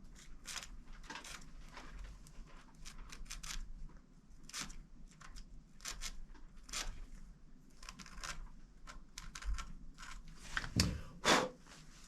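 Small metal parts and tools clicking and scraping as a rusty HEI distributor is worked apart by hand, with two louder knocks near the end.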